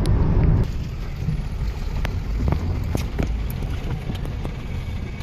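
Car cabin noise: engine and tyre rumble that drops suddenly about half a second in to a quieter, slower rumble, with scattered knocks and clicks as the car crawls over a rutted, muddy road.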